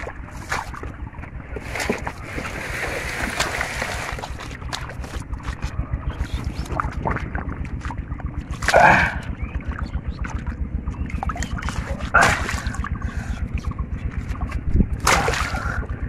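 Splashing in shallow muddy water as a large catfish is grabbed and held by hand, with three loud splashes, about nine, twelve and fifteen seconds in. A steady, rapid, low pulsing runs underneath throughout.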